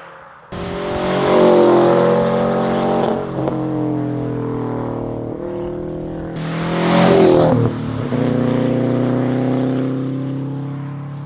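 Subaru WRX STI's turbocharged EJ boxer four running through an AWE Track Edition catback exhaust, loud and throaty. It cuts in about half a second in, swells as the revs climb and fall twice, loudest about a second in and again about seven seconds in, then fades.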